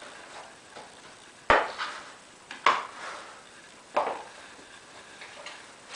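Tubeless cyclocross tire being worked onto a bicycle rim by hand: three short, sharp scrapes about a second apart as the tire bead is pushed over the rim edge, the first the loudest.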